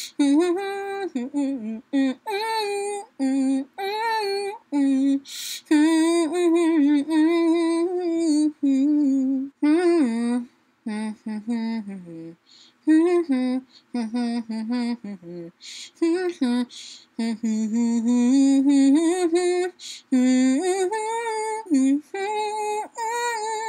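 A woman humming a melody through a gel lip mask covering her mouth, in short phrases with brief pauses between them.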